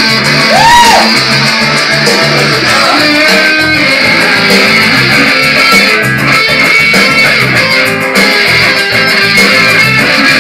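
Electric guitar played loudly through an amplifier, a continuous jam with a few short bent notes.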